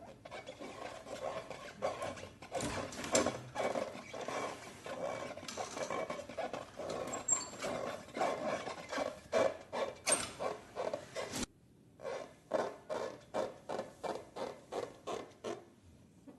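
Hands squeezing and working slime: quick, closely packed rubbing, squishing strokes. They break off suddenly about eleven seconds in, then come back as a steady rhythm of about three strokes a second.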